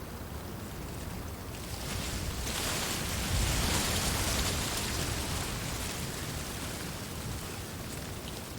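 Wind blowing through reeds: a steady rustling that swells into a louder gust about two seconds in, with a low rumble, then dies back down.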